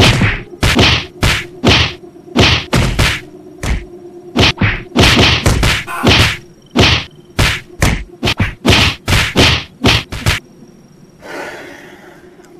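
A rapid flurry of punch impact sound effects, sharp whacks coming two or three a second for about ten seconds. A short burst of noise follows near the end.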